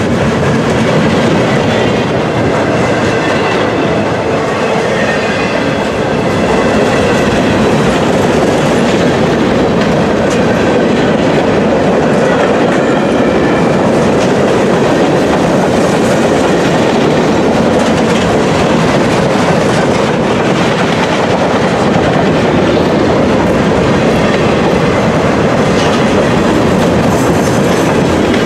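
Freight train cars rolling past, a steady loud rumble and clatter of steel wheels on the rails, with a faint high wheel squeal in the first half.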